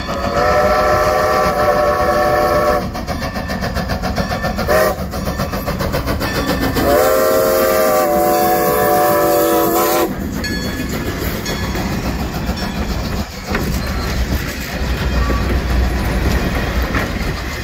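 Strasburg Rail Road #90, a 2-10-0 steam locomotive, sounding its chime whistle as it approaches a grade crossing: a long blast, a brief toot and another long blast. It then runs past working steam, and its passenger coaches rumble and clack by over the rail joints.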